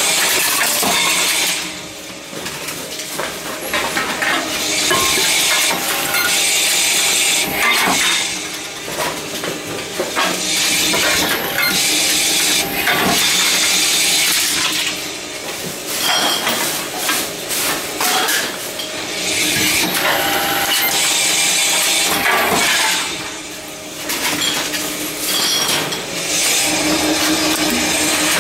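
Envipco ULTRA 48 reverse vending machine running as containers are fed in, with bottles and cans rattling and clinking through its intake. The clatter comes in loud stretches of several seconds with short dips between.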